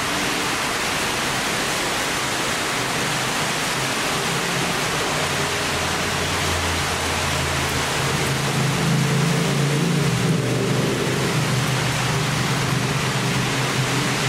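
Steady rushing noise of wind and rain on the microphone. Under it, the low drone of a twin-engine jet airliner on final approach grows in from about a third of the way in and gets louder from about halfway as the aircraft nears.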